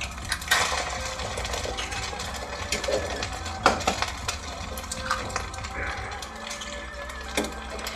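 Fried rice sizzling in a hot wok while eggs are cracked on the rim and dropped in, with a few sharp cracks standing out over the steady frying hiss.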